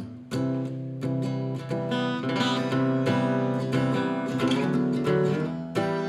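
Acoustic guitar strummed and picked, playing a song's introduction: chords struck every half second or so and left to ring.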